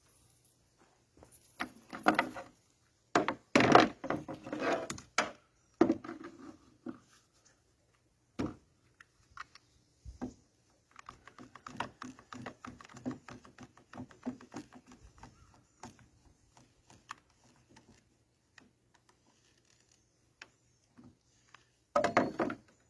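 Wood and small hardware being handled on a workbench: scattered knocks and thunks, a stretch of fast small rattling clicks in the middle, and another burst of clatter near the end.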